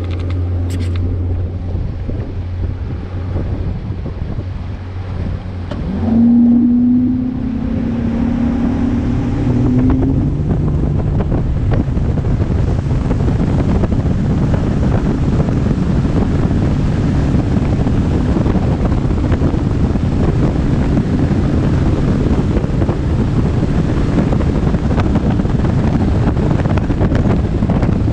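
Bass boat's outboard engine picking up from a low hum, with a whine and a jump in loudness about six seconds in, then running steadily underway with wind buffeting the microphone.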